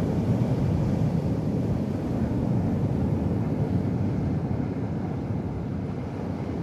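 Steady low rumble of water washing in a rock pool, heard muffled from an underwater camera.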